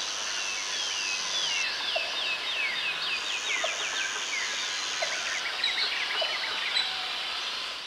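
Portable metal-cutting bandsaw cutting through steel angle, the blade squealing in quick, high, chirping glides over a steady run.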